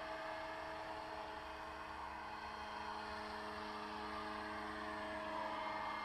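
Scale AS350 model helicopter (700-size RC) in flight, its motor and rotors giving a steady whine with a light rushing noise, slightly louder near the end.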